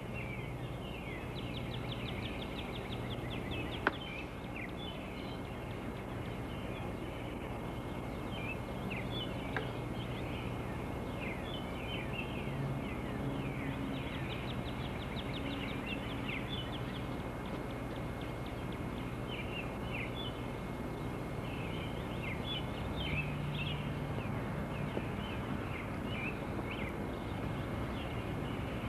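Several birds singing together in a dawn chorus: many short chirps, quick downward-swept notes and rapid trills, over a steady low hum.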